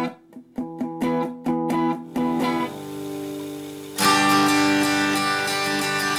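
Guitar music: single picked notes with short gaps for the first two seconds or so, then a chord left ringing, and a louder strummed chord about four seconds in that rings on.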